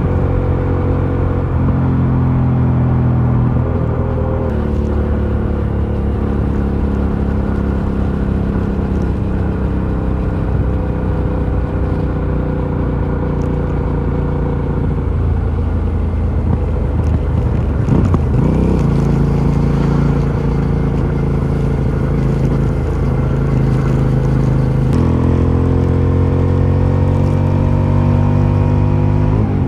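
Aprilia Shiver 750's 90-degree V-twin running through its stock exhaust under steady load. The engine note holds a fairly even pitch, shifts up and down in steps a few times, and climbs steadily over the last few seconds.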